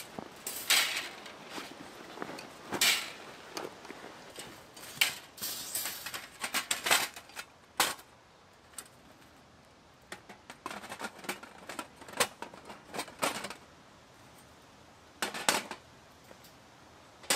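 Steel plates of a large Winnerwell flat-pack fire pit clanking and scraping against each other as they are pulled from the carry bag and slotted together. A loud sharp clank every second or two, with a quieter lull midway.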